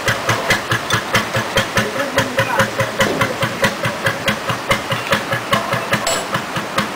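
Engine of an old working narrowboat running at low revs under way, an even exhaust beat of about three a second.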